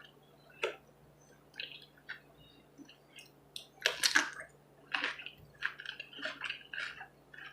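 A person eating close to the microphone: wet chewing, lip smacks and small clicks coming irregularly, the loudest cluster about four seconds in. A faint steady hum runs underneath.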